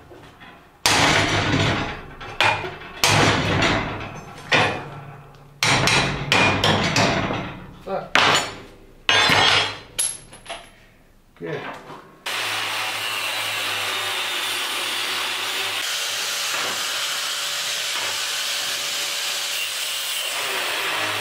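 Hammer blows on wrought iron scrollwork, a dozen or so irregular ringing strikes, as a bent scroll is knocked back into line. About twelve seconds in, an angle grinder starts and runs steadily, cutting a wrought iron scroll.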